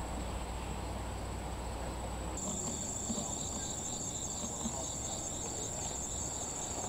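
Insects trilling steadily in one high, shrill tone, louder from about two seconds in.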